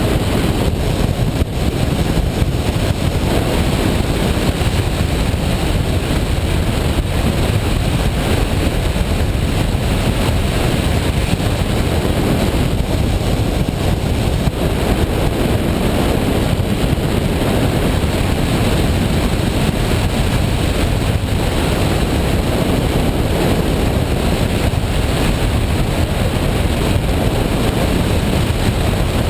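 Washing machine running with a steady, loud noise that stays level throughout.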